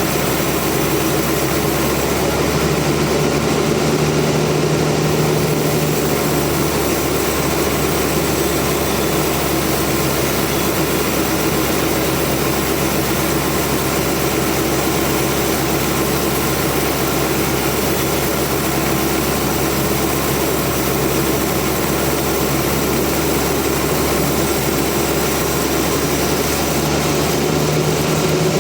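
Sawmill machinery running steadily, an engine-like drone with a constant pitch and no breaks.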